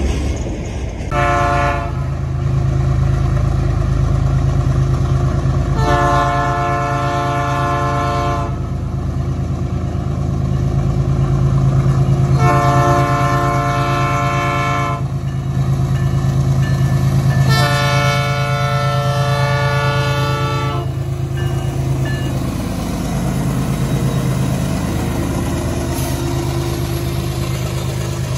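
Diesel freight locomotive sounding its multi-tone air horn four times, one short blast then three long ones, as it approaches a level crossing, over the steady low drone of its diesel engine.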